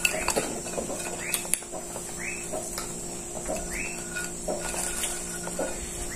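Cutlery clicking against plates during a meal, with short squeaks recurring about once a second, over a steady high-pitched insect drone and a low hum.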